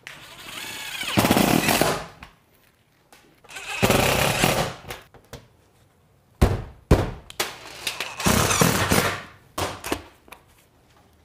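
Cordless impact driver driving pancake screws through a metal valley flashing pan, one screw after another. Each screw is a burst of rapid hammering lasting about a second. There are about five such bursts, the first starting with the motor spinning up.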